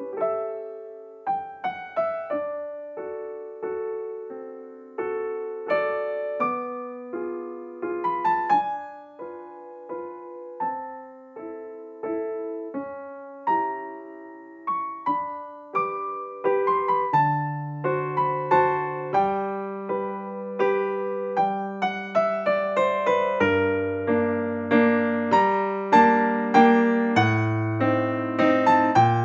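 Background piano music: a gentle melody of struck notes, with lower bass notes joining about halfway through and the playing growing fuller.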